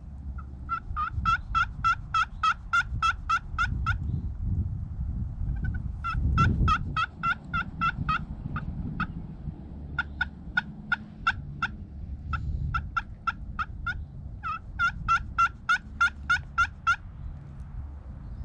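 Turkey yelping: five runs of evenly spaced, raspy notes, about four a second, each run several notes long.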